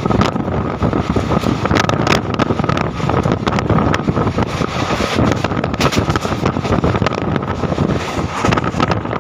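Goods train of tank wagons rolling past close by, departing: a steady rumble of steel wheels on rail, broken by many irregular clicks and knocks, with a thin steady whine running under it.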